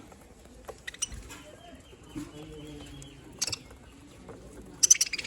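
Budgerigars chirping in short, sharp bursts, a loud cluster of chirps near the end. Underneath, another bird gives a low cooing call.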